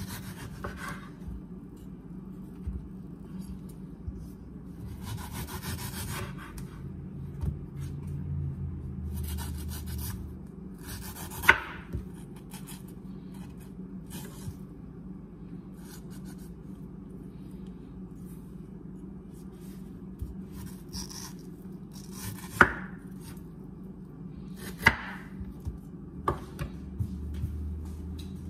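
Knife cutting a mango on a cutting board: scraping and rustling, with four sharp knocks of the blade or fruit against the board over a low steady hum.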